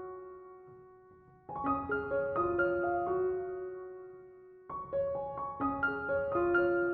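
Background piano music: short phrases of soft plucked notes, each phrase ending on a long ringing note that fades before the next begins, about one and a half seconds in and again near five seconds.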